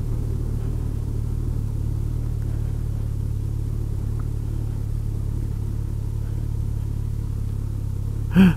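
Kawasaki Concours 14's inline-four engine running at a steady speed with a low, even rumble.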